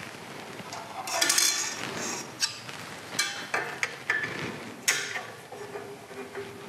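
Steel rule and scriber handled against a brass bar on a steel bench top: a burst of metal clinking and scraping about a second in, then a few single sharp clinks with a short ring.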